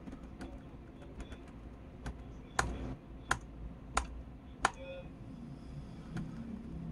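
Keys pressed on an ASUS laptop's keyboard: a handful of separate key clicks, four clearer ones in the middle coming about two-thirds of a second apart.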